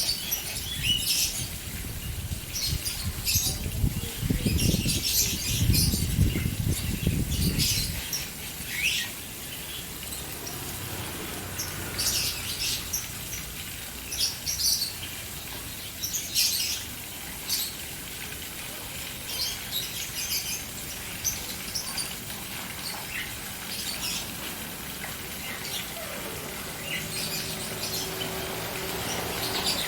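Caged birds chirping in many quick, short high calls over the steady splash of a fountain. A low rumble sits under the sound for about the first eight seconds, then drops away.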